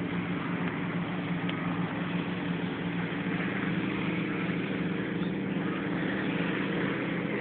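A steady engine hum at one constant pitch over an even hiss, with no change in level.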